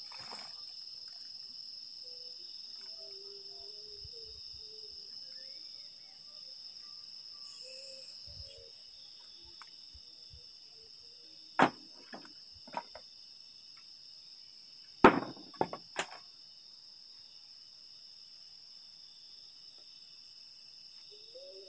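Steady night chorus of crickets and other insects, with several sharp knocks: a loud one about halfway through, two smaller ones just after, and a loud cluster of three a few seconds later.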